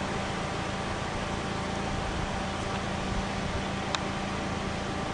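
Small Toyota car's engine idling, a steady hum with hiss, and a single click about four seconds in.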